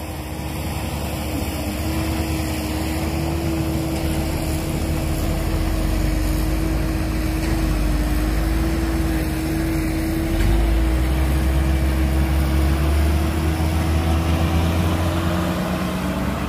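Heavy diesel engine of construction machinery running, with a thin steady tone above the rumble; the engine grows louder about ten seconds in.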